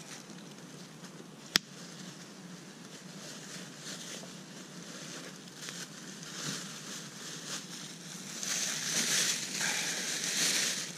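Wood campfire crackling, with one sharp pop about a second and a half in. From about eight and a half seconds in, a plastic shopping bag rustles loudly as it is handled.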